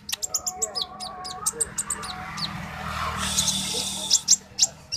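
Konin (kolibri ninja sunbird) singing: a fast run of short, sharp, high-pitched chirps, some sliding in pitch, with a hissy chattering stretch past the middle.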